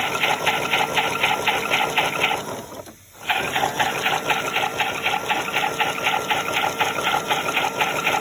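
Battery-powered toy washing machine running its drum spin, a rapid rhythmic whirr of about five pulses a second. It cuts out for a moment near three seconds in, then starts again.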